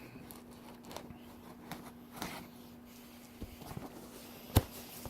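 Chef knife scraping and sawing at a cardboard box's packing tape: scattered faint scratches and taps, with one sharp knock about four and a half seconds in.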